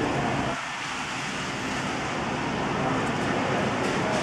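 Steady rushing outdoor background noise, dipping briefly about half a second in.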